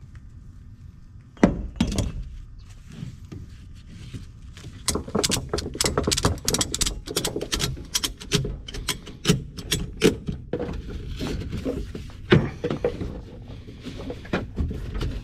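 Irregular rapid clicking and clattering, with sharp knocks about one and a half seconds in and again near twelve seconds.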